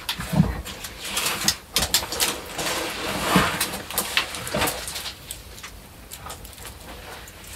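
Irregular scrapes, scuffs and knocks of a person climbing among rocks and a wooden pole in a narrow rock crevice, with a few brief low sounds among them.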